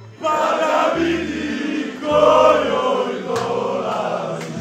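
A group of men chanting and singing loudly together over music with a repeating bass note. The chanting starts sharply about a quarter second in.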